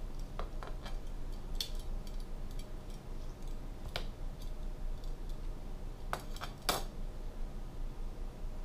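Metal kitchen tongs clicking and tapping while picking up tomato slices from a plastic cutting board and setting them on a sandwich: a handful of separate sharp clicks, the loudest about four and seven seconds in, over a steady low hum.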